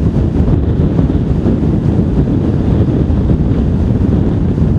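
Strong wind buffeting the microphone, a loud, steady low rumble.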